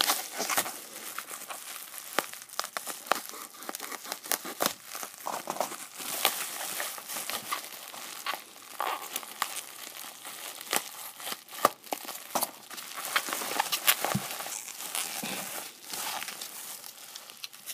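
Bubble wrap crinkling and rustling as a package is unwrapped by hand, with many sharp irregular crackles.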